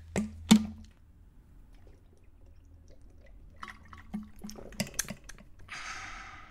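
A water bottle is handled and drunk from: two sharp knocks at the start, small clicks and knocks of the bottle a few seconds later, then a breathy exhale near the end.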